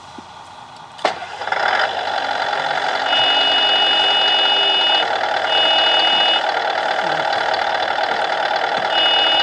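RC Volvo L250G wheel loader's sound module: after a click about a second in, a simulated engine sound starts and runs steadily, with a high warning tone sounding three times over it, like a reversing alarm.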